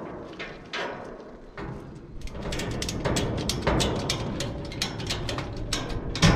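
A nylon ratchet strap being worked and tightened over a steel hopper bin: a run of sharp clicks and metallic knocks, with a heavy thump near the end.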